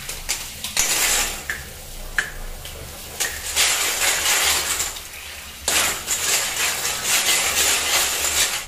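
Water running from a tap into a stainless steel bowl of aquarium gravel while hands rub and swirl the stones clean, the stones rattling and clinking against the steel. The splashing swells and eases as the bowl and hands move.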